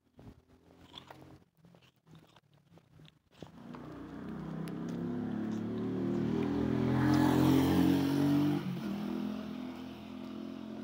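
A motor vehicle's engine comes up and passes close by: it grows louder from a few seconds in, is loudest past the middle, then eases off to a lower steady running sound.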